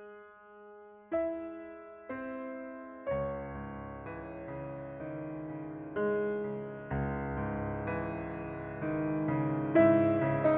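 Background piano music: a few slow single notes, then fuller chords with low bass notes joining about three seconds in, growing louder toward the end.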